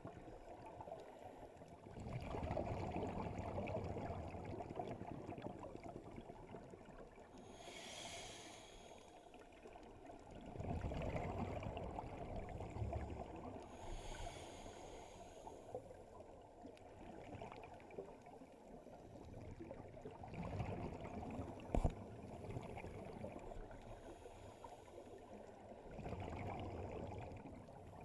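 Scuba diver breathing through a regulator underwater: exhaled bubbles rumble in four long swells, with the short hiss of an inhalation between them twice. A single sharp click about three-quarters of the way through.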